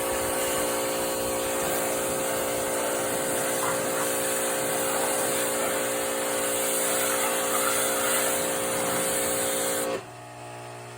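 Power washer running and spraying water, a steady machine tone under a high hiss. About ten seconds in the spray hiss cuts off suddenly and the machine keeps running more quietly.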